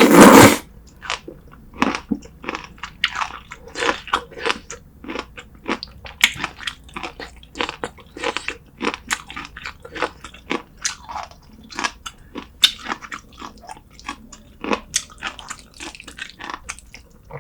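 Close-miked chewing of braised beef short rib and seafood, with many sharp wet clicks and smacks throughout. A short, very loud burst of noise comes right at the start.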